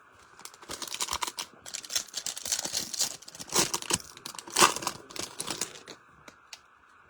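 Crinkling and tearing of a foil baseball card pack wrapper being ripped open and handled, a string of rustling crackles that stops about six seconds in.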